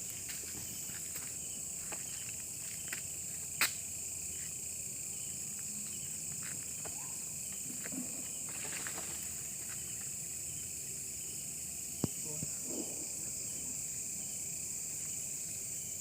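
Night chorus of crickets and other insects, a steady high-pitched trill, with a few faint clicks, the sharpest about three and a half seconds in and another later.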